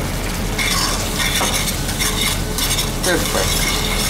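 Spaghetti being stirred and tossed with a metal utensil in an aluminium pan, with metal scraping on the pan over a steady sizzle and bubbling of the starchy pasta water. The water is simmering down toward a creamy sauce.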